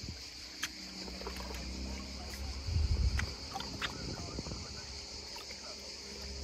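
Cicadas buzzing steadily in a high, even chorus. Under them, a low, steady engine drone sets in about half a second in and holds through the rest.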